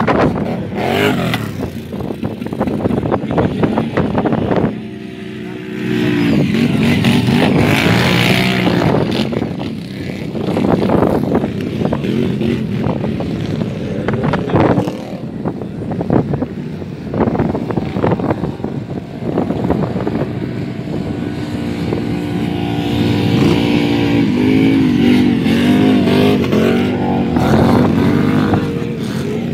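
Quad bike engines revving on a sand dune, their pitch rising and falling as the throttle opens and closes, with wind buffeting the microphone.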